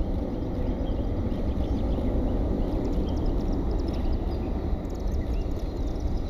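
Steady low roar of airport noise, with faint high chirps scattered over it.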